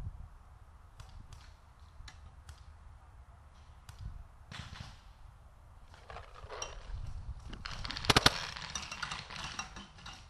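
Paintball markers firing: scattered single pops in the first few seconds, then rapid strings of shots from about six seconds in, with the loudest shots about eight seconds in.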